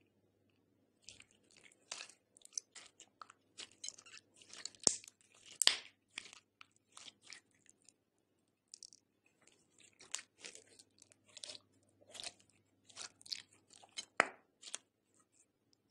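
Glossy blue slime with pearl beads being stretched, folded and squeezed by hand, giving irregular sticky clicks and pops. The loudest come about five and six seconds in and again near the end, with a short lull midway.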